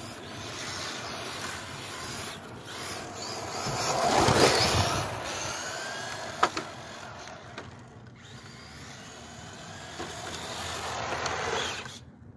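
Brushed-motor RC touring car driving on asphalt, its motor and drivetrain whining. It is loudest as it passes close about four seconds in, with rising whines as it speeds up again, then the sound drops off suddenly near the end.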